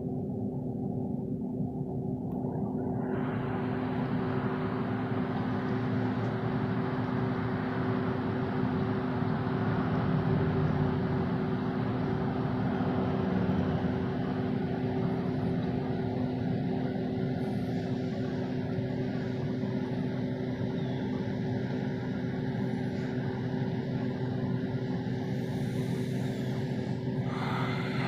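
A machine running steadily, giving a constant hum with a few fixed low tones over a noisy rumble that grows brighter about three seconds in.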